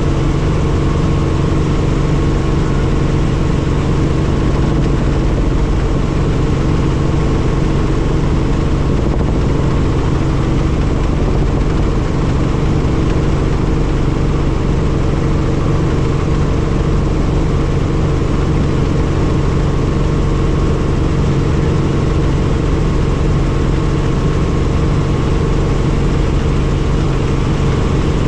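Helicopter in steady flight, its engine and rotor making a loud, even drone with a steady higher whine.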